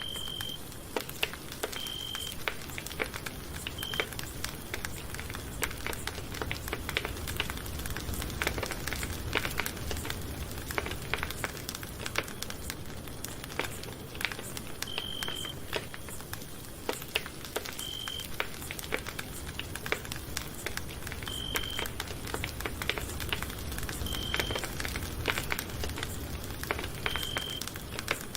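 Campfire crackling: a steady run of small pops and snaps over a soft low rumble. A short high-pitched beep sounds eight times, several seconds apart.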